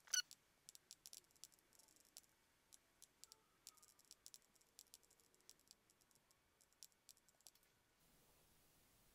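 Faint, irregular clicks of a Jumper T16 radio transmitter's buttons and scroll wheel as its mixer menu is worked through, the loudest click just after the start; the clicks stop near the end.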